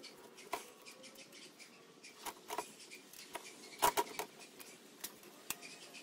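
Scattered sharp metallic clicks and clinks of a breaker bar and socket on cylinder head bolts as they are cracked loose, about eight in all, the loudest a quick pair near the middle.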